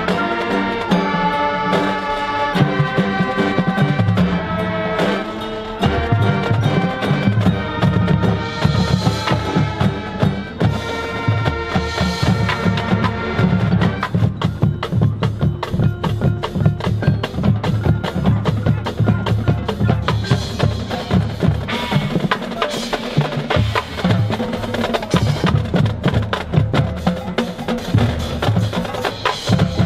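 High school marching band playing its field show: winds and brass hold sustained chords over drums, then about halfway through the percussion section takes over with fast, dense drum patterns.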